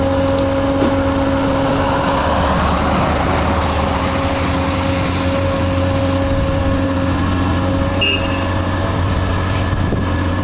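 Heavy diesel machinery running steadily with a constant hum: a gantry-mounted log handler working its grapple over a loaded logging truck. A couple of mouse-click sound effects come right at the start.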